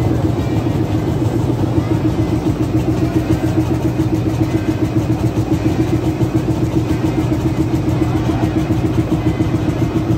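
Vintage tractor engine idling steadily, with a fast, even pulse.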